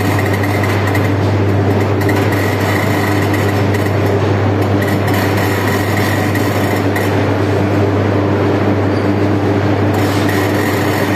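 Steady industrial din in a steel melting shop while a crane pours molten steel from one ladle into another. Under it runs a constant low hum, and a thin high whine comes and goes several times.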